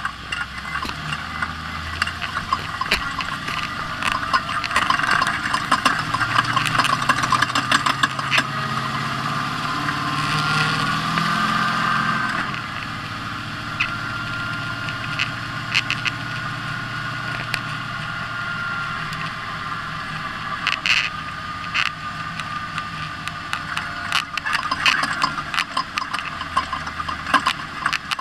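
Ford Ranger off-road race truck's engine running at speed, with many sharp knocks and rattles over it. The engine note climbs briefly and drops back about twelve seconds in.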